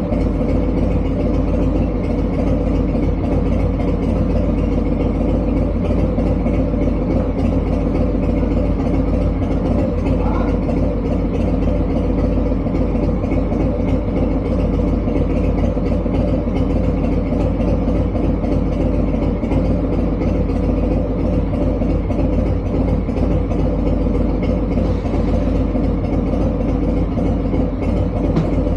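An engine idling steadily at an even speed, with no revving.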